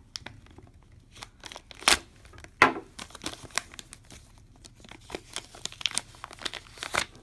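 Thin clear plastic packaging crinkling and rustling in short, irregular crackles as it is pulled off a silver bar, with two louder crackles about two seconds in.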